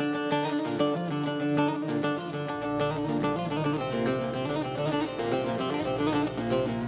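Bağlama (Turkish long-necked saz) picked fast with a plectrum, playing an instrumental folk melody in quick repeated notes.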